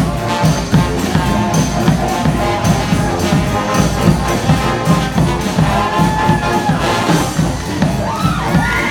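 Street brass band with drums playing a steady beat, horns carrying the tune, and a crowd cheering and whooping along.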